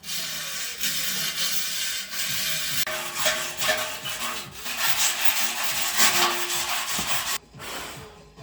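Steady rubbing and scraping with a few short squeaks, stopping suddenly about seven and a half seconds in.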